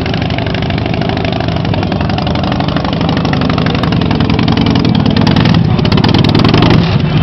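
Custom chopper motorcycle's engine running at low revs as the bike creeps forward at walking pace, a little louder in the second half.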